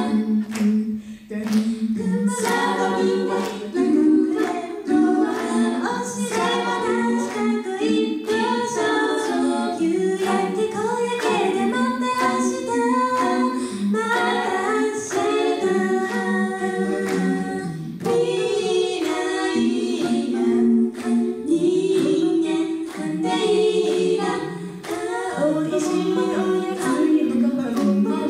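Five-voice women's a cappella group singing in harmony through handheld microphones, with a steady beat of sharp clicks running through the song.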